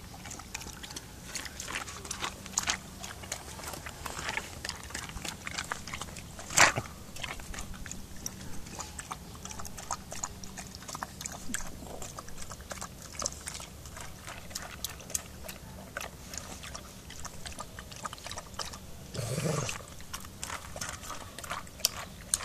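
Dogs eating dry kibble from a metal bowl: irregular crunching and clicking throughout, with one sharper clink about six and a half seconds in. A dog gives a short low growl near the end.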